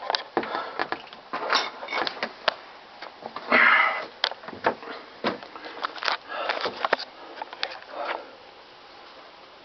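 Irregular clicks, knocks and short scrapes of tools working a keel bolt loose in a wooden boat keel, with one longer scrape about three and a half seconds in; quieter for the last second or so.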